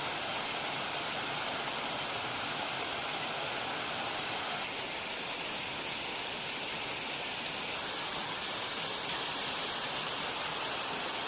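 Steady rushing of a small waterfall: an even, unbroken water noise.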